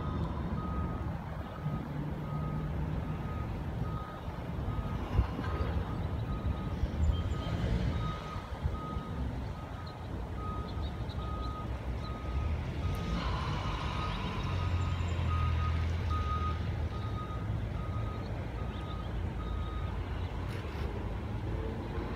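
Truck's reversing alarm beeping steadily, about one and a half beeps a second, over a low engine rumble; the beeping stops shortly before the end.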